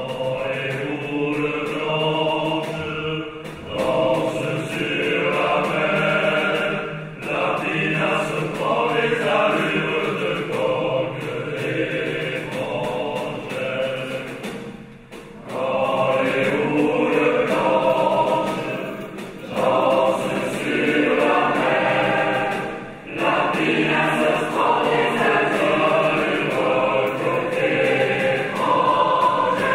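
Large mixed choir singing with an orchestra, in phrases separated by short breaks every few seconds.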